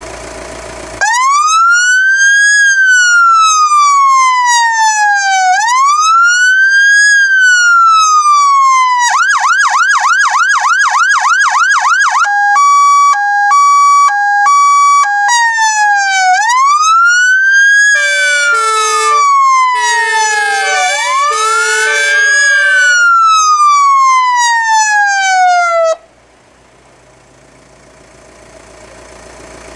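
Federal Signal PA300 electronic siren on an ambulance cycling through its tones: a slow rising-and-falling wail, then a rapid yelp, then a two-tone hi-lo, then the wail again. From about 18 s, two-tone air horns (martin horns) sound in an alternating two-note pattern over the wail. Everything cuts off suddenly about 26 s in, leaving faint background noise.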